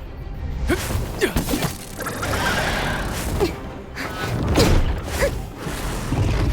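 Background score mixed with several sudden hits over a low rumble: animated action sound effects.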